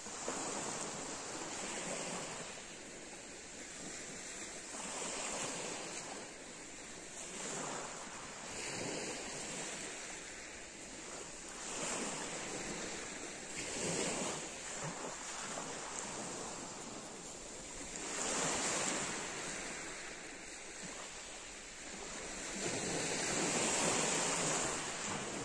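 Small waves breaking and washing up a pebble beach, swelling and falling away every few seconds, with the biggest surges near the end. Wind buffets the microphone.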